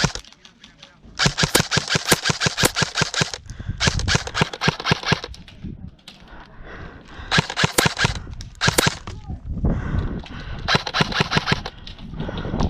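Airsoft guns firing in rapid automatic bursts, about four strings of quick cracking shots with short pauses between.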